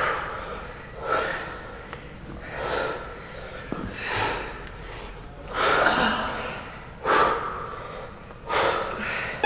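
Heavy, effortful breathing of people holding a hip-dip plank, with hard exhales about every one and a half seconds in time with the side-to-side hip drops.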